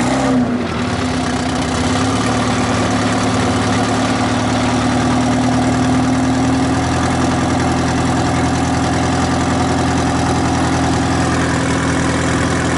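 Detroit Diesel 4-53 four-cylinder two-stroke diesel in a Timberjack 450 skidder, settling into a steady idle right after a cold start as it warms up.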